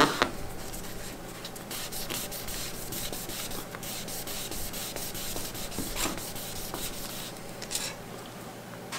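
Cotton gauze pad wet with cleaner rubbed over a paper work surface, mopping up abrasion residue: a steady scratchy scrubbing that eases off near the end. A couple of sharp knocks come right at the start.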